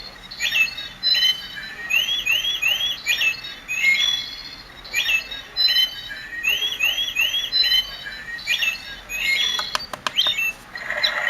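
Birdsong nature-sound track played back by an alarm clock: repeated chirps and short rising whistled phrases. About ten seconds in come a few clicks, and near the end the sound changes to croaking frogs.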